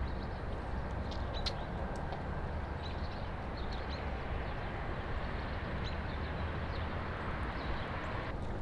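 A vehicle running steadily, a low rumble under an even noise, with a few faint short high chirps over it.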